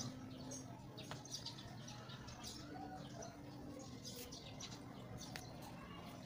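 Faint bird chirping, with a few light clicks of a metal spoon against a plastic container and bowl.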